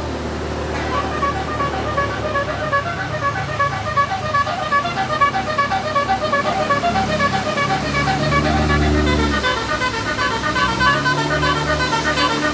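A tour bus's basuri telolet horn plays a fast tune of short, repeated notes, about four a second, over the bus engine running underneath.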